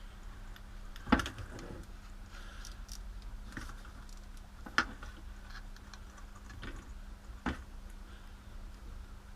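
Handling sounds of a rotary tool and its extension attachment being taken apart and fitted: a few sharp plastic clicks and knocks, the loudest about a second in, with small rustles and taps between them.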